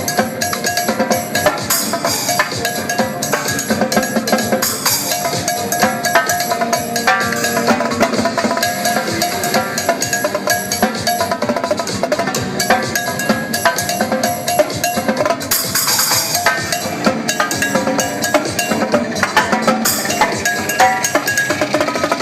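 Electronic dance music with a live drum kit (Mapex drums, Paiste cymbals) played over it in a steady fast rhythm, with cymbal crashes about 2, 5 and 16 seconds in.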